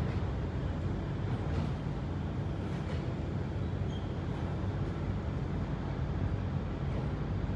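Freight train rolling past a level crossing: a steady low rumble with a few faint clicks.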